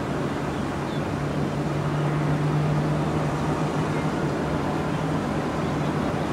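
Steady rumble of airliner jet engines, with a low hum that swells for a few seconds in the middle.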